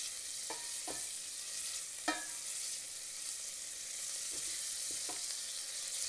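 Chopped onion and prosciutto sizzling steadily in hot oil in a pot as they are stirred, with a few knocks of the utensil against the pot, the loudest about two seconds in.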